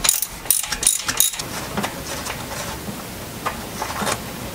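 Socket ratchet clicking in short bursts as it loosens the old analog coolant temperature sensor from the engine, for about the first second and a half; after that, only a few faint ticks as the sensor is turned out by hand.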